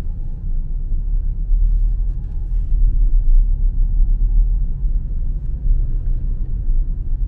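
Steady low rumble of a moving car's engine and tyres, heard from inside the cabin while driving slowly.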